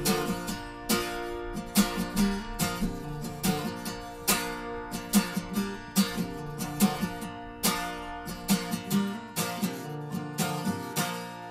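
Acoustic guitar strummed and picked in an instrumental passage, with no singing. The strokes stop near the end and the last chord is left to ring out.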